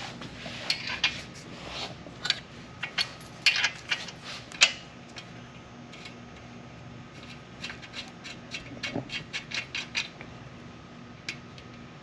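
Metal clinks and clicks from loosening the rear axle nut and its toothed axle washer at a trike's hub, scattered over the first few seconds. A few seconds later comes a quick run of light clicks, about four a second.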